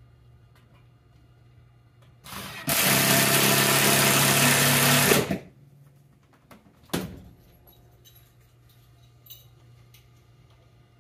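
A handheld power drill runs steadily for about three seconds, then stops. A single sharp knock follows a couple of seconds later.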